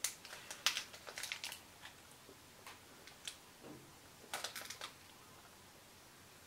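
Faint, irregular crisp crackles and crunches from a chocolate-coated sweet being tasted, in small clusters near the start, about a second in and about four and a half seconds in.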